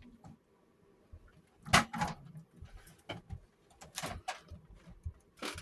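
Handling noise from toy foam-dart blasters being picked up and moved: several separate sharp knocks and clicks, the loudest a little under two seconds in.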